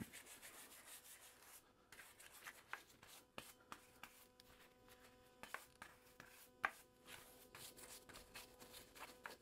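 Faint scrubbing of a stiff nylon brush over the oiled cast-iron head of a dumbbell, with a few light knocks as the dumbbell is handled, the loudest about six and a half seconds in.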